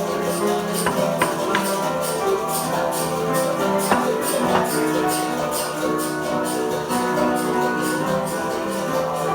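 Live acoustic trio: piano holding sustained chords, caxixi shakers keeping an even pulse about two to three times a second, and a berimbau struck a few times.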